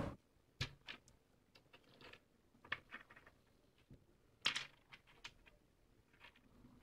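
Small pebbles set down one at a time on a tabletop: a scattered run of light clicks and clacks, the loudest about four and a half seconds in.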